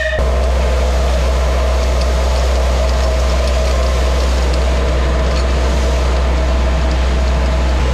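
Shay geared steam locomotive under way, steam hissing from around its vertical cylinders and running gear in a loud, steady hiss over a low rumble.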